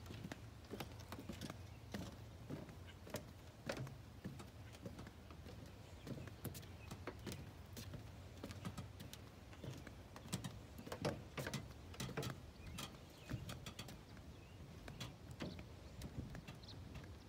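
Footsteps on the wooden planks of a lake dock: irregular short knocks, about one or two a second, over a steady low rumble.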